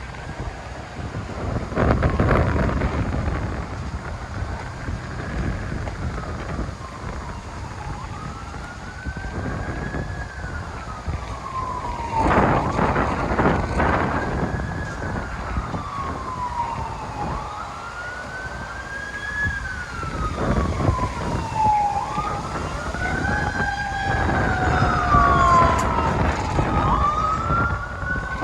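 Emergency vehicle siren on a slow wail, its pitch rising and falling about every four to five seconds, with a second siren wailing out of step with it from about two-thirds of the way in. Loud rushes of noise break over it about two seconds in and again around twelve to fourteen seconds in.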